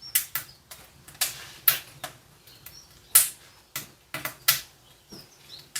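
A dozen or so sharp clacks at uneven intervals, a few much louder than the rest, with a few faint bird chirps.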